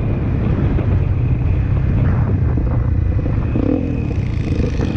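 Honda CRF250L dual-sport motorcycle's single-cylinder four-stroke engine running steadily while the bike is ridden along a dirt track.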